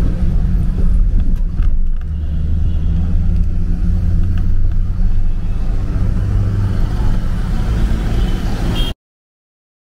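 Interior noise of a moving taxi: a steady low rumble of engine and tyres on wet road. It cuts off suddenly near the end.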